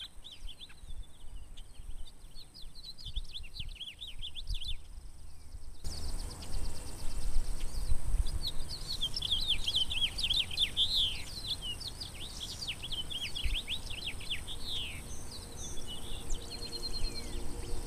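Songbirds singing in a spring dawn chorus: quick runs of chirps and trilled notes, sparse at first and thickest midway, over a low rumble of wind on the microphone.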